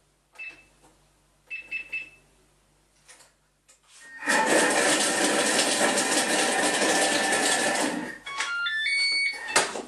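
Thermomix blade chopping sun-dried tomatoes in oil at speed 5, a loud steady whirr for about four seconds starting about four seconds in. A few short beeps come before it, and a run of beeps at different pitches follows once it stops.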